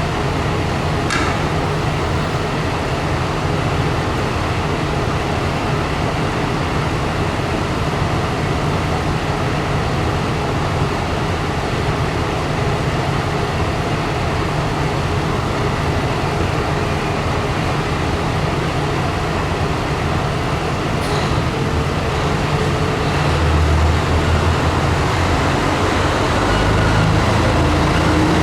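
Diesel railcar engine running with a steady low rumble, then growing louder in steps near the end as the train pulls away from the platform.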